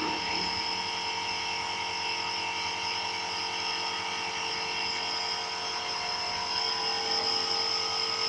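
Nebulizer running with a steady, even hum.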